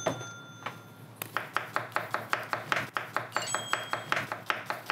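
Kitchen knife chopping fast on a cutting board, even strokes about five a second, starting about a second in.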